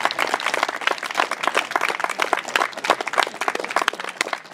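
Audience applauding, many hands clapping at once at the end of a speech.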